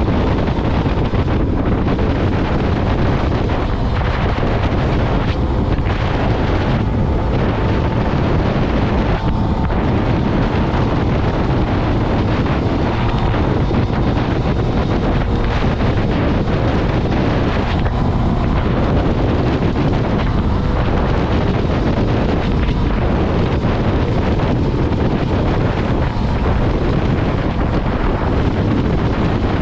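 Motorcycle engine under way, nearly buried under heavy wind noise on the microphone. Brief dips in the sound come every couple of seconds.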